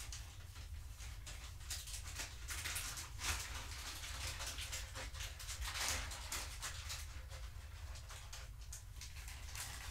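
Scattered rustling, scraping and light knocks of things being handled and moved about, busiest in the middle, over a steady low hum.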